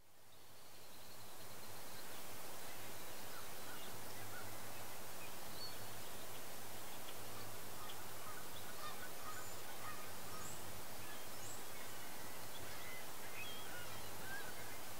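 Steady wind rush with scattered short bird calls, fading in over the first two seconds.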